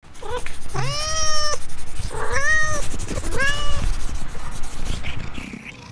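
Cat meowing: a few short sounds, then three drawn-out meows, the first the longest at under a second.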